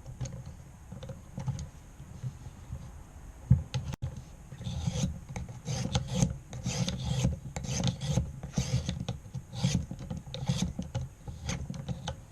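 Knife blade drawn against the stone of a guided-angle sharpening system, a repeated rasping scrape. The strokes are faint and scattered at first, then come steadily at about two a second from about four seconds in.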